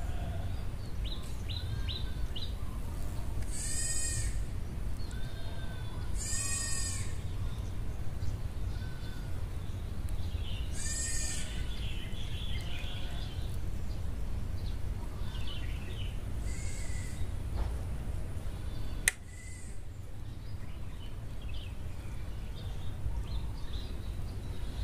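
Three loud, drawn-out animal calls, each under a second, about four, six and eleven seconds in, with small bird chirps scattered between them over a steady low rumble. A single sharp click about nineteen seconds in.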